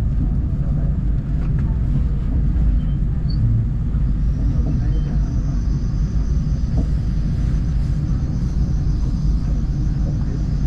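Steady low rumble of a train running, heard from on board as it pulls into the station. A faint high pulsing whine comes in about four seconds in and carries on over the rumble.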